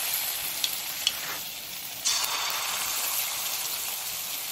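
Chira-and-banana batter fritters deep-frying in hot oil in a kadai, a steady sizzle. Two light clicks come about a second in, and the sizzle grows louder about two seconds in.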